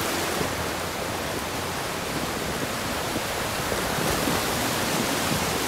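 Ocean surf breaking and washing up over the shallows: a steady rushing noise.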